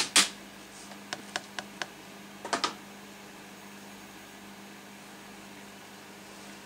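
A series of sharp clicks. Two loud ones come right at the start, then four lighter ones about a quarter second apart, then a quick cluster of three near the middle. A steady low hum runs underneath.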